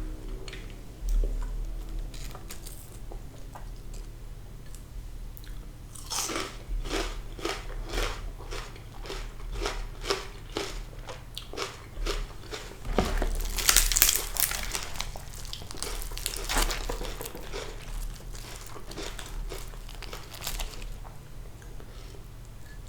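Close-miked chewing of crispy fried sea bass: regular crunches about twice a second, louder from about six seconds in and loudest around the middle.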